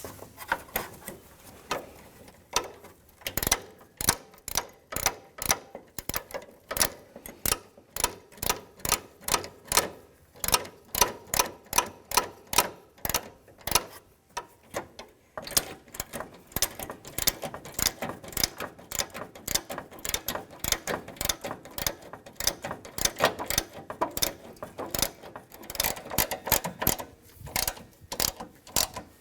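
Socket ratchet clicking in repeated strokes as the two 10 mm bolts of a new hood latch are tightened down.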